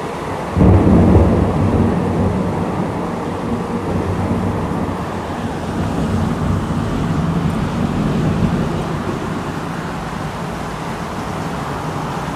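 Thunder rumbling: it breaks in suddenly about half a second in and rolls on long and low, loudest in the first couple of seconds.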